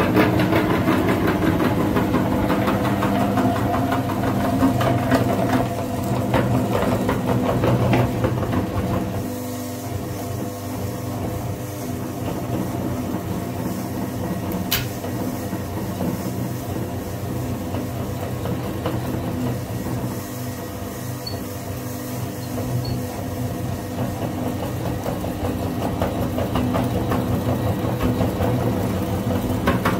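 Electric meat grinder's motor running steadily as it grinds bars of soap, with crunching and crackling over the hum for the first nine seconds or so. After that it runs quieter and steadier, with a single sharp click about halfway through.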